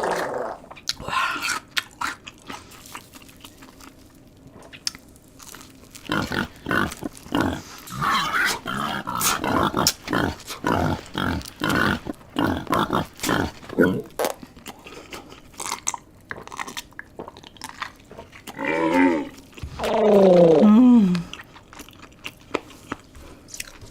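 Close-up crunchy chewing and biting, a quick run of crunches through the middle. Near the end come two grunting bodily noises, a short one and then a longer, louder one that falls in pitch.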